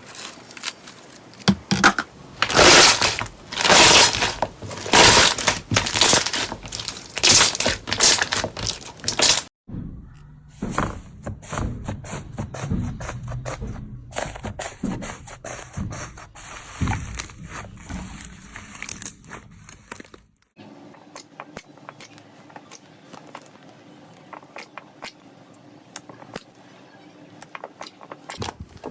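Slime being squeezed and pressed by hand: a run of loud crackling, popping squishes, then two quieter stretches of softer squishing and faint clicking pops, each starting suddenly.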